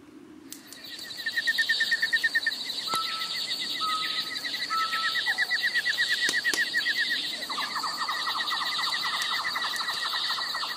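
Night insects, crickets, chirping in fast pulsed trills, several overlapping at different pitches, with a few sharp clicks.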